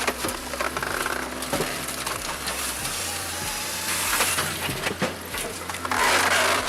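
Palex KS43S firewood processor at work: wood cracking and splintering as logs are cut and split, a dense run of crackles and clicks over a steady machine hum. A louder burst of crackling comes near the end.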